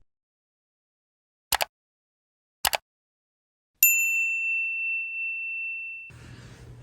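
Two quick double clicks, then a single bright bell ding that rings on for about two seconds before fading out.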